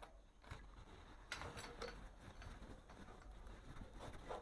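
Faint clicks and light knocks of plastic PVC pipe fittings being handled, a few close together about a second and a half in and one more near the end, over faint room tone.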